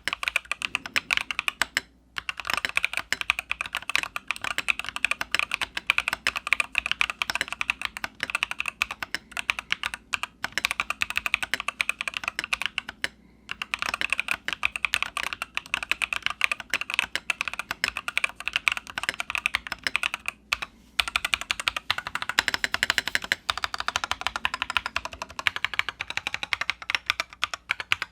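Fast typing on an IROK FE87/104 Pro mechanical keyboard modded with painter's tape, silicone rings and Akko V3 Pro tactile switches: a rapid, clicky stream of keystrokes, broken by brief pauses about 2, 13 and 20 seconds in.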